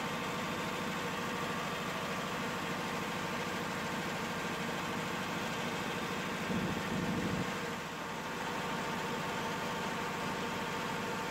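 Steady drone of a running diesel generator, an even hum with constant tones, swelling briefly about six and a half seconds in.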